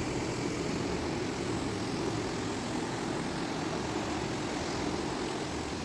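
Steady rushing of a river swollen in flood, an even noise with no let-up.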